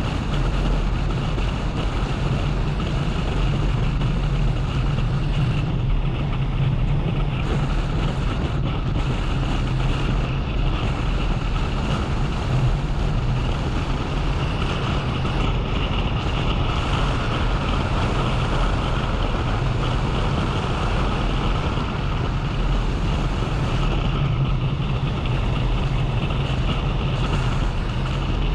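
Motorcycle engine running at a steady pace on the move, with wind rushing over the camera.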